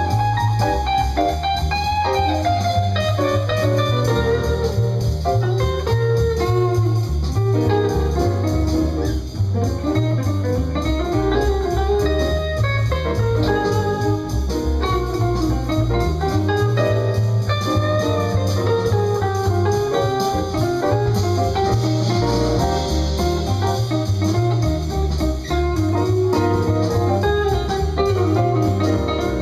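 Semi-hollow-body electric guitar playing a bluesy single-note lead over a backing with a steady, pulsing bass line.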